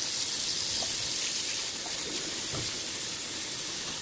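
Kitchen tap running steadily into the sink, a continuous even hiss of water for washing vegetables.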